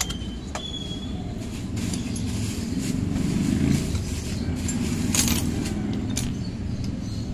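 A few sharp metal clinks of Honda TMX 125 Alpha transmission gears and shaft being handled in a steel basin, the loudest right at the start, over a low background rumble that swells in the middle.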